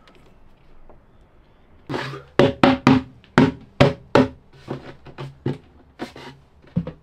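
Low room tone, then from about two seconds in a quick, uneven run of sharp percussive hits, each ringing at the same low pitch.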